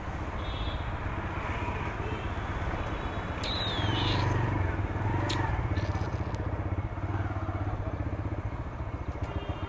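TVS Raider 125 motorcycle's single-cylinder engine running steadily at low speed in light traffic, with road noise. A brief high squeal falls in pitch about three and a half seconds in.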